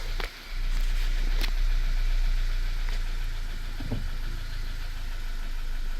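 Car engine catching just after the start and settling into a steady idle, a little higher at first and then easing down. It runs evenly, with the cylinder misfire now cured.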